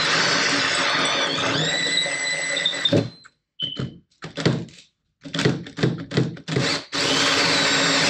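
Power drill with a hole saw cutting a hole through a boat deck. The motor runs steadily with a whine that shifts in pitch, breaks into short stop-start bursts for about four seconds, then runs steadily again.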